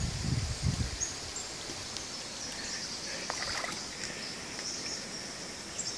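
Outdoor creekside ambience: insects trilling in short, high-pitched, repeating phrases over a steady hiss, with a few soft low thumps near the start.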